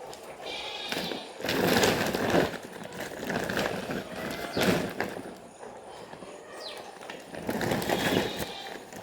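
Young chicks peeping: a few high, falling peeps, between louder bursts of rustling and clattering handling noise.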